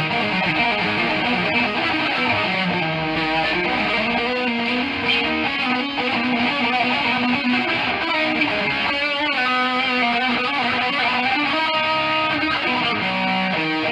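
Electric guitar being played steadily, a melodic line of single notes with some held, wavering notes.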